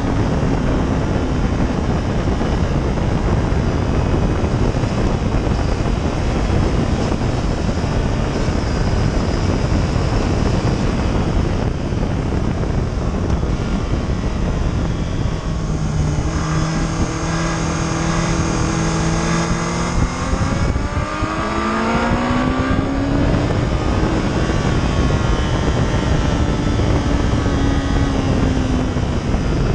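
Motorcycle at speed on a race track, heard from a camera mounted on the bike: heavy wind rush over the microphone with the engine running underneath. Past halfway the engine note holds steady, breaks off briefly, then rises as the bike accelerates hard.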